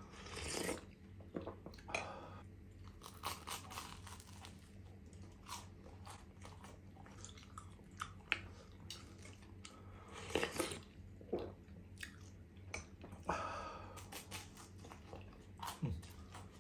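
Close-up eating sounds: a slurp from a spoon of soup at the start, then bites into grill-toasted sandwich bread and steady chewing, with many small crisp crunches of the toasted crust and a few louder bites.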